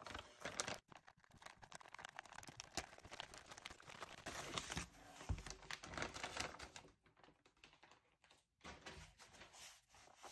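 Shipping box being opened by hand: packing tape tearing and packing material crinkling and rustling in irregular bursts, with a quieter pause about two-thirds of the way through.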